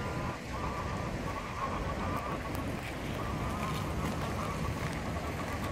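Ducks calling from the lake over a steady low rumble.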